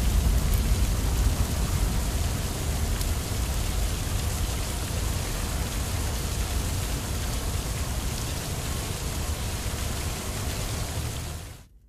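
Steady rushing hiss of water spraying from a fire hose, a cartoon sound effect, fading out near the end.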